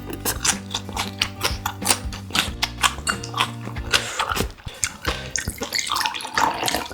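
Close-miked chewing of grilled pork intestine: rapid, wet, chewy clicks and smacks. A low sustained tone that shifts pitch runs underneath.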